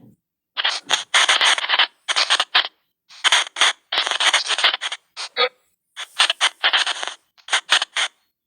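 Spirit-box app playing white noise in choppy fragments: short bursts of hiss and scraping sound that cut in and out abruptly, with dead-silent gaps between them.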